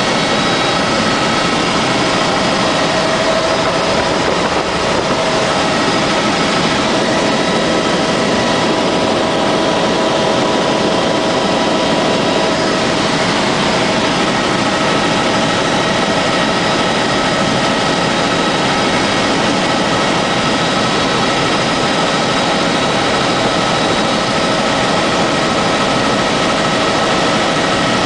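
Helicopter in flight heard from inside the cabin: a steady, loud drone of engine and rotor with a constant whine over it.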